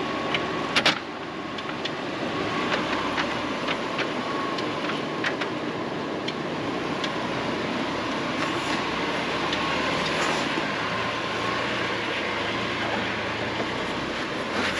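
A Jeep crawling slowly over rocks: a steady engine drone with scattered sharp clicks and crunches of tyres and stones, a pair of louder clicks about a second in.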